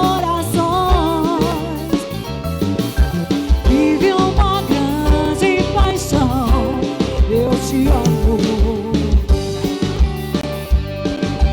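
Live band music: a steady drum and bass beat under a wavering melody line with strong vibrato.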